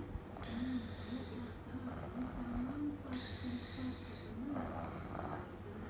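A toddler snoring in sleep: two long hissing breaths about three seconds apart, the second followed by a softer rasp. A low warbling tone comes and goes underneath.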